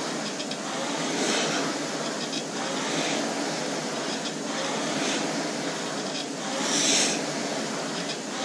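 Concept2 indoor rowing machine's air flywheel whirring, surging with each hard stroke about every two seconds.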